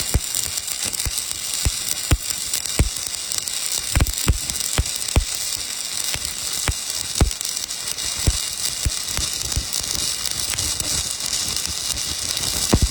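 Stick-welding arc from a J507 low-hydrogen electrode, a steady crackling sizzle broken by irregular sharp pops.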